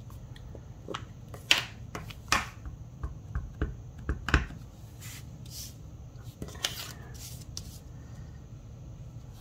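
Hands handling paper-crafting supplies on a tabletop: light rustles and scattered clicks and taps of cardstock, tools and a clear stamp on its acrylic block being set up for stamping. The sharpest taps come about one and a half, two and a half and four and a half seconds in.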